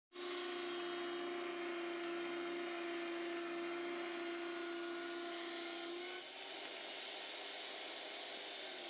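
RIDGID pipe threading machine running with its die head cutting a thread on a pipe, a steady hum with a clear tone. About six seconds in the tone stops and the sound drops to a softer, rougher whir.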